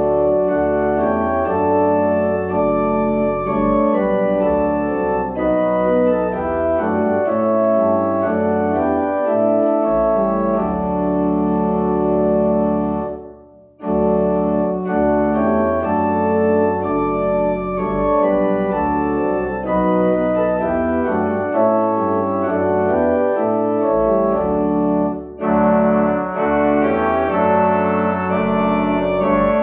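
Organ playing a postlude of full, sustained chords that close the service. The music stops briefly about thirteen seconds in, then resumes.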